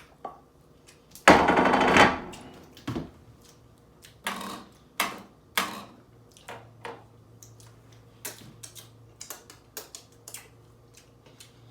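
A loud burp about a second in, followed by chewing with scattered wet mouth clicks and lip smacks while the last of a double cheeseburger is eaten.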